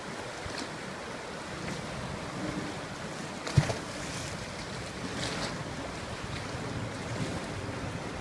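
Rushing water of a river swollen by a typhoon, a steady roar with wind buffeting the microphone, and one sharp bump about three and a half seconds in.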